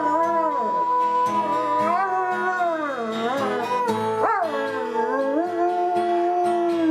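A dog howling along with music, in long notes that slide up and down in pitch.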